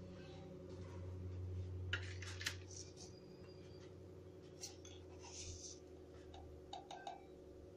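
Faint, scattered clinks and taps of steel kitchen utensils and pans, a few separate knocks spread through, over a low steady hum.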